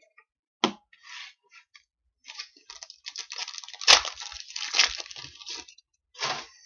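Hockey trading cards and their packaging being handled: irregular crinkly rustles, busiest in the middle, with two sharp snaps about four and five seconds in.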